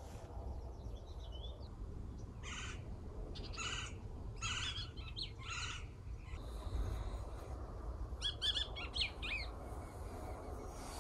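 Wild bird calls: four short calls about a second apart, then a quick run of sharp rising calls near the end, over a low steady rumble.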